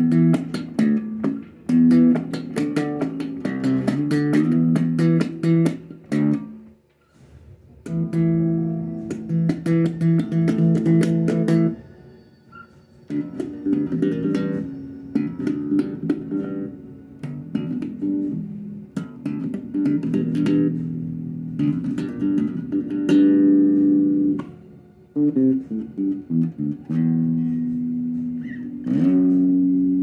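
Electric bass guitar being played: plucked notes and quick riffs, with short pauses about seven, twelve and twenty-five seconds in.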